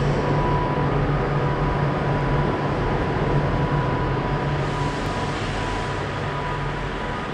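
Avanti West Coast express train standing at the platform, running with a steady hum and a faint, thin high whine from its onboard equipment; the sound eases slightly near the end.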